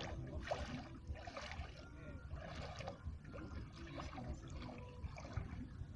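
Water splashing and trickling against a small boat as it is paddled across a lake, the strokes coming roughly once a second, over a low rumble of wind on the microphone.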